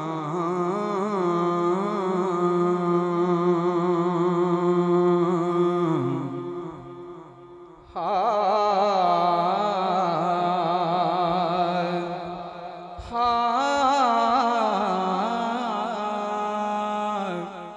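A man's voice singing long, wordless held notes with a wavering, ornamented pitch, in three phrases: the first about six seconds long, the others starting about eight and thirteen seconds in. It is the opening alaap of a sung devotional Punjabi kalam, amplified through a handheld microphone.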